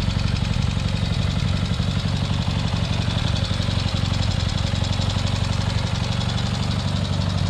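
Vintage motorcycle engine running steadily at low revs, with an even beat of exhaust pulses and no revving.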